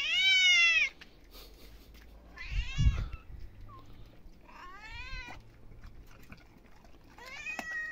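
A hungry cat meowing to be fed: a loud meow at the start, then three shorter, fainter meows about every two and a half seconds. A dull thump comes about three seconds in.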